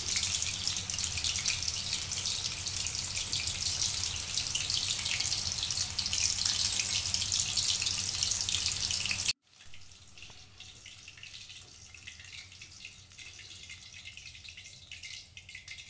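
Chicken 65 pieces in a rice-flour and cornflour batter deep-frying in hot oil in a kadhai: a steady, loud sizzle full of fine crackling. About nine seconds in it cuts off suddenly to a much fainter sizzle. The pieces have fried to a reddish colour and are being lifted out.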